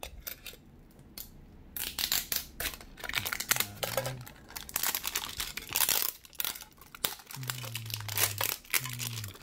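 Clear plastic shrink-wrap crinkling and tearing as it is pulled off a Pokémon TCG mini tin, a dense run of crackles starting about two seconds in.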